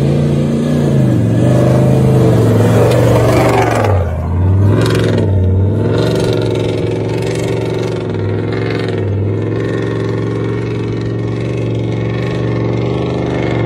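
Off-road 4x4's engine revving hard under load, its pitch dipping briefly several times as the revs drop and pick up again.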